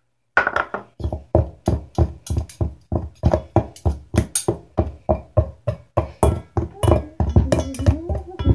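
Knives repeatedly striking the inside of a stainless steel pot, about three or four clanks a second, as butter is cut into flour for pie crust.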